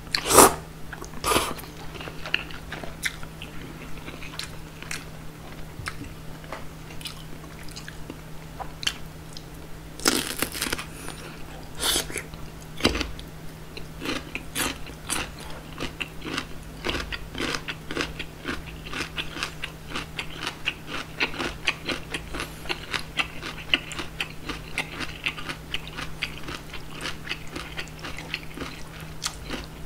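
Close-miked eating sounds: cold soybean-soup noodles slurped in at the start, then loud crunching bites into whole young-radish kimchi (chonggak kimchi) about a third of the way in. Fast, crisp crunchy chewing follows.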